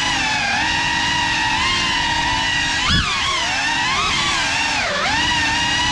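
FPV quadcopter's brushless motors and propellers whining, the pitch swooping up and down with the throttle, with a sharp throttle punch about three seconds in.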